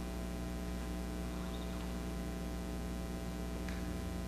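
Steady electrical hum with many overtones, unchanging throughout, with two faint ticks about two seconds apart.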